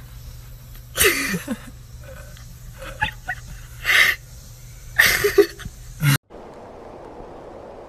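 Chimpanzee making loud breathy huffs, three of them at about one, four and five seconds in, with a few short pitched sounds between. About six seconds in it cuts off suddenly to faint steady background noise.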